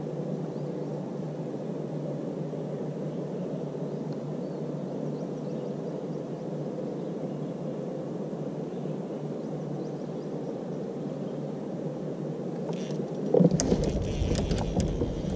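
Steady rushing background noise. About 13 seconds in, a cluster of clicks, knocks and low thumps as the angler sweeps the fishing rod hard and shifts his weight on the plastic kayak.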